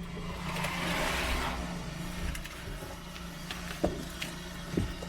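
Car idling with a steady low hum, a rush of noise swelling and fading over the first couple of seconds, and a few sharp clicks near the end.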